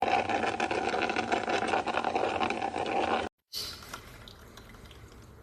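Hanabishi HCM-10B drip coffee maker brewing: water rushing and gurgling through the machine. It cuts off abruptly about three seconds in, then comes back much quieter.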